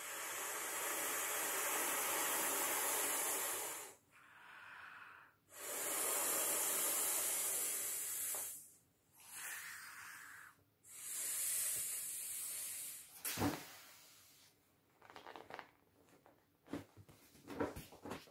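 Breath blown by mouth into the valve of an inflatable vinyl paddling pool: three long blows, each a steady rush of air, with short pauses for breath between them. A sharp click follows near the end of the last blow, then light rustling and tapping of the vinyl as it is handled.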